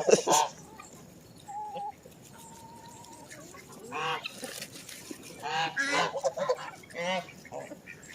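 Domestic geese honking in a series of short calls, at the start and then clustered from about four to seven and a half seconds in. Between them, a couple of thin, steady peeps sound about two seconds in.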